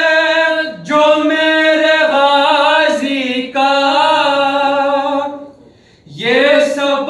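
A man singing an Urdu manqabat (devotional poem) unaccompanied, drawing out long held notes that waver and bend in pitch without clear words. Brief breaths break the line about a second in and past the middle, then a short pause near the end before a new rising note.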